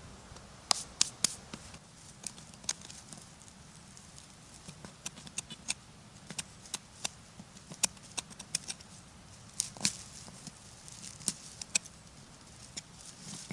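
Irregular sharp crackles and snaps, a few dozen of them, from dry forest-floor litter being disturbed.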